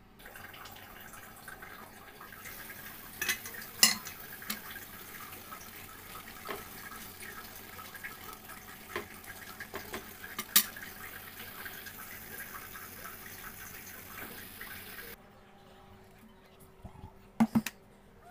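Tomato sauce boiling in a steel pot, a steady hiss, while a spatula stirs it and knocks sharply against the pot a few times. About 15 seconds in the hiss stops, and two sharp knocks follow near the end.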